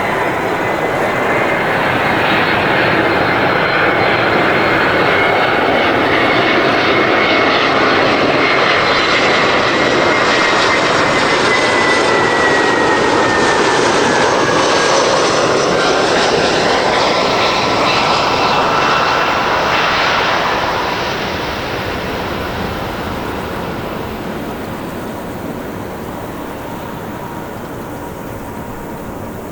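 Airbus A320-200 jet airliner passing close by on landing: loud jet engine noise with a high whine that slowly falls in pitch as it goes past, then fades away over the last several seconds.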